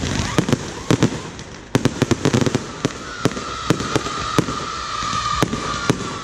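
Fireworks firing from the ground: a rapid, irregular run of sharp bangs and pops. There are short rising whistles near the start, and a long high whistling tone from about three seconds in.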